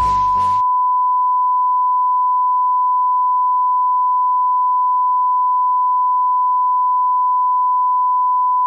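A steady, unbroken electronic beep: one pure tone held at a constant pitch and loudness. Electronic music playing over it cuts off about half a second in.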